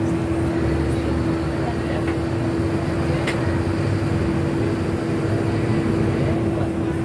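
Steady vehicle running noise, a constant drone with one held hum and low rumble, and a single short click about three seconds in.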